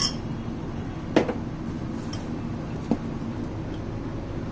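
A few sharp clicks and knocks of kitchen utensils and containers being handled, the loudest about a second in and another near three seconds, over a steady low hum.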